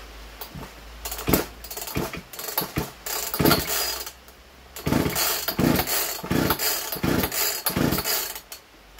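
Poulan PN3414 two-stroke chainsaw being pull-started: about a dozen short bursts as the recoil starter rope is yanked and the engine turns over without settling into running. These are its first start attempts since its seals were replaced.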